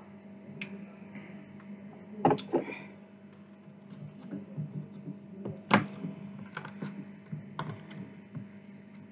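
Close-miked mealtime handling sounds over a steady low hum: a double knock a little over two seconds in, as the drinks can is set down, then a sharp click and scattered lighter clicks and scrapes of a metal fork picking at chips in a polystyrene takeaway box.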